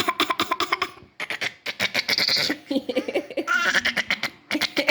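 A small child laughing in quick repeated bursts of giggling, with short pauses between fits.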